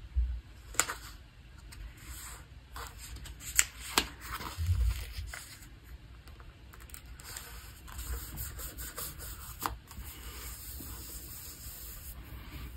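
Fingers pressing and rubbing a paper sticker down onto a planner page, then hands smoothing the open paper pages flat: soft rubbing and scraping of paper with scattered light ticks and a few dull thumps.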